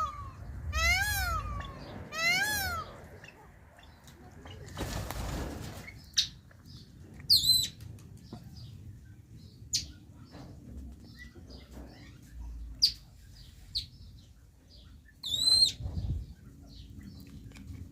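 Indian peafowl calling: a series of loud honking calls that rise and fall, about one every second and a half, over the first three seconds. Then a brief rush of flapping about five seconds in, followed by short, sharp, high bird calls scattered through the rest.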